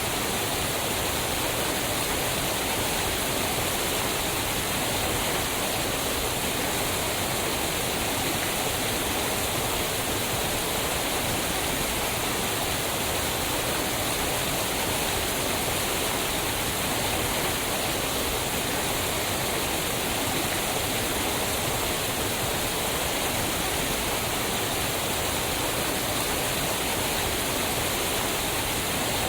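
Waterfall rushing steadily, a dense, even roar of falling water with no change in level.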